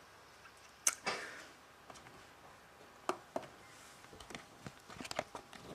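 Faint scattered clicks and light knocks over quiet room tone, with a soft rustle fading after the first click about a second in; more small clicks crowd together near the end.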